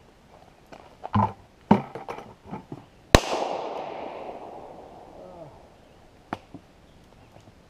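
A single handgun shot about three seconds in, its report echoing and dying away over a couple of seconds.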